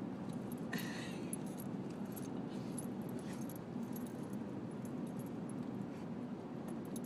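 Dog's collar tags jingling in scattered clinks as a young Rhodesian Ridgeback mix digs and circles on a blanket, over a steady low hum.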